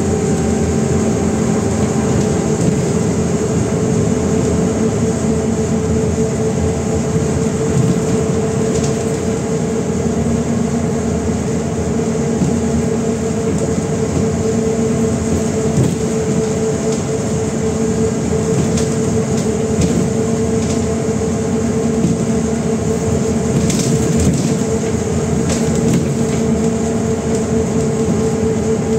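Cabin noise inside a MAZ-105 articulated city bus under way: steady drivetrain running noise with a constant whining tone over a lower hum. A few brief rattles come about three-quarters of the way through.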